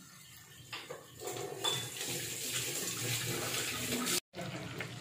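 Prawns sizzling as they fry in hot oil: a steady hiss that builds about a second in and breaks off suddenly near the end, leaving a fainter sizzle.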